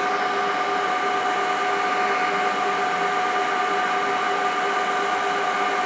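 HP ProLiant DL380 G5 server's cooling fans running steadily: an even whoosh with several constant whining tones.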